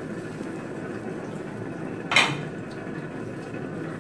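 Meat and sauce simmering steadily in a steel wok, with one sharp, ringing clink of kitchenware against metal about halfway through.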